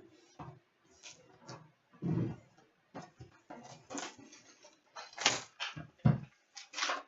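A sealed hobby box and its foil-wrapped trading-card packs being opened and handled: irregular rustling and crinkling, with a dull thump about two seconds in and a louder one about six seconds in.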